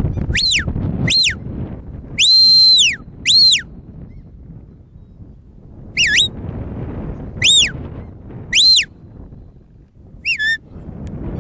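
Shepherd's whistle commands to a working sheepdog: about eight sharp, high whistle blasts, some short and sliding down in pitch, others held longer and rising then falling, the longest about two seconds in. Wind rumbles on the microphone underneath.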